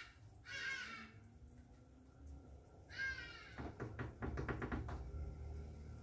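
Samsung EcoBubble front-loading washing machine tumbling a wash: short high-pitched squeaks, one near the start, one about a second in and a falling one about three seconds in. A quick run of clicks follows, then a low motor hum from about four seconds in.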